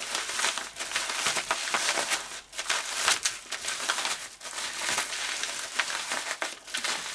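Plastic bubble wrap crinkling and rustling as it is handled and unrolled by hand, a dense run of irregular crackles.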